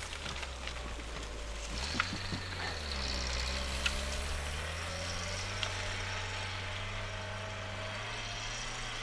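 Small off-road 4x4's engine running under load as it pushes through deep snow, the revs climbing about two to three seconds in and then holding steady. A few short sharp clicks sound over it.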